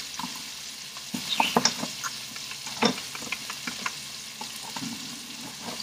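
Green peppers frying in oil in a pan, a steady sizzle, with a few sharp clicks and knocks about one and a half seconds in and again near three seconds.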